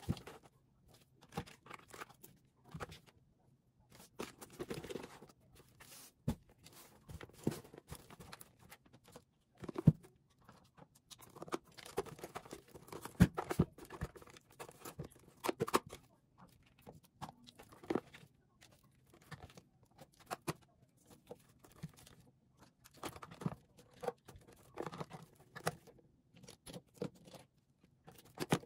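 Makeup products being rummaged through and pulled out of a zippered makeup bag: irregular clicks and taps of plastic cases and compacts knocking together, with rustling, and a few louder knocks.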